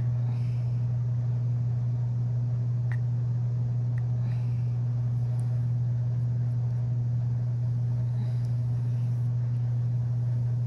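A steady low hum, with a couple of faint clicks about three and four seconds in.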